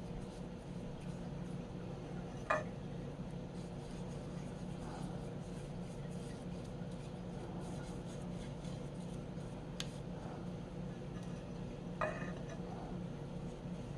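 Steady low hum, with two sharp clinks about two and a half seconds in and near the end, and a faint tick in between.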